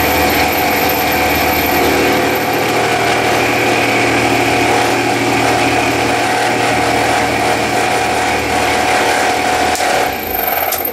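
Clarke mill drill running at 2100 RPM while a two-flute end mill cuts a slot in aluminium: a steady motor and spindle whine over the noisy chatter of the cutter in the metal. The sound falls off slightly near the end.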